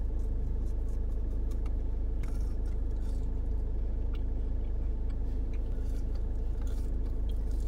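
Car engine idling steadily, heard from inside the cabin as a low hum, with a few faint clicks and rustles over it.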